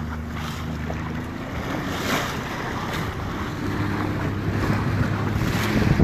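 Motorboat engine running steadily under way as a low hum, with water rushing and splashing along the hull and wind buffeting the microphone; the splashing grows louder near the end.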